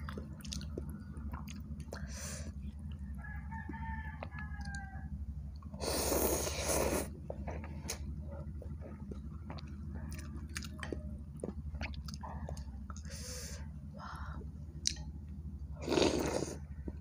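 Close-up eating of a bakso noodle soup: wet chewing and small mouth clicks, with a loud slurp of noodles about six seconds in and another near the end. A rooster crows faintly about four seconds in.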